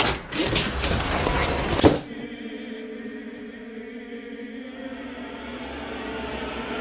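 A loud, dense burst of noise lasting about two seconds cuts off suddenly. It gives way to sustained choir-like music, held chords that slowly swell in volume.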